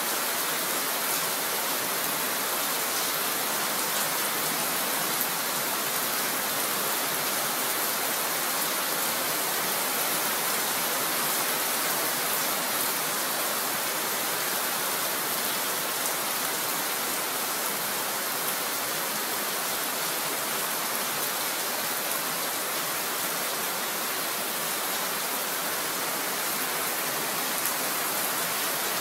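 Heavy typhoon rain pouring down steadily, an even, unbroken hiss.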